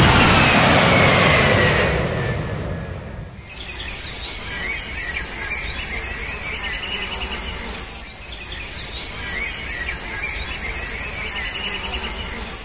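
A sound falling in pitch fades out over the first three seconds. Then countryside ambience takes over: crickets chirping in a steady pulsing rhythm, with birds calling.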